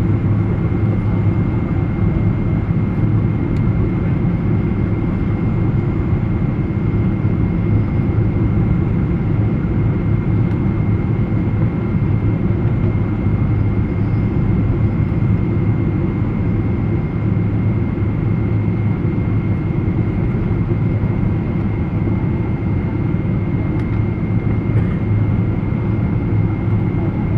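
Steady cabin noise inside a Boeing 777: a deep, even rumble of engines and airflow with a faint high whine held on one note.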